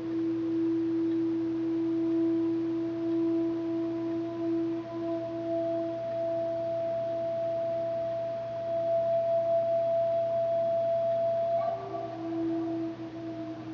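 A sustained ringing tone with a couple of higher overtones, the low tone wavering and slowly fading while a higher one holds on. It is sounded again about twelve seconds in, slightly higher in pitch.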